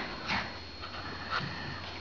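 Two small dogs play-fighting: a few short bursts of scuffling and dog noises.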